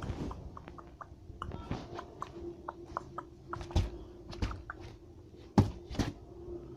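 A hare moving about, making irregular sharp clicks and soft thumps, loudest near the middle and again about two thirds of the way in, over a faint steady hum.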